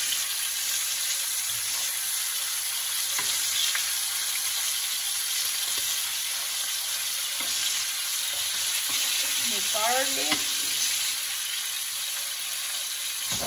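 Ribeye steaks searing in butter with garlic and rosemary in a frying pan, sizzling steadily.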